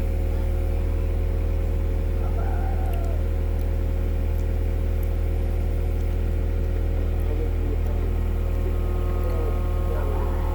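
Komatsu PC120-6 excavator's diesel engine running steadily with a deep hum and a few steady higher tones. A couple of faint squeaks come in about two seconds in and again near the end.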